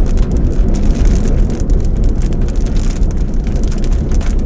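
Strong wind from a close tornado blasting the microphone: a loud, steady low rumble, with many small hits scattered through it.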